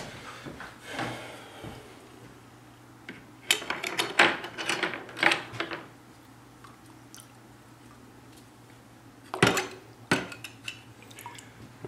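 Clatter of hard objects being handled: a run of sharp knocks and clinks starting about three and a half seconds in and lasting about two seconds, then two sharp knocks near the end.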